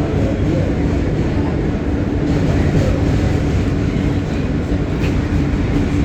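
R160 subway train running at speed, a steady loud rumble of wheels on rail with a steady low hum that comes and goes.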